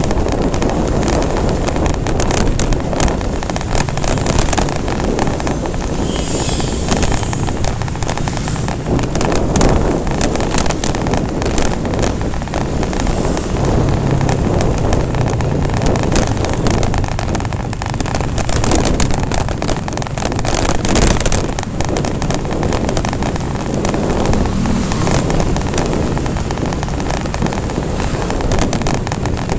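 Wind buffeting the microphone on a moving Honda Revo FI motorcycle, with the bike's small four-stroke engine running steadily underneath.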